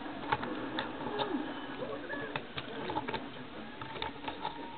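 Faint scattered clicks and light taps of hands handling and adjusting a plastic action figure.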